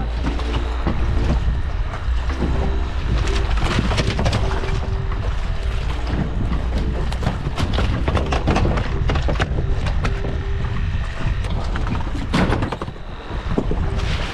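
Wind buffeting the microphone as a steady low rumble, with an on-and-off hum and scattered knocks and clatter on the boat deck as a caught red snapper, fishing gear and a cooler are handled.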